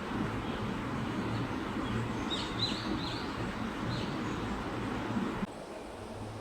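River water running with a steady rush, with a few short high chirping calls about two to four seconds in. The rush drops suddenly to a quieter level about five and a half seconds in.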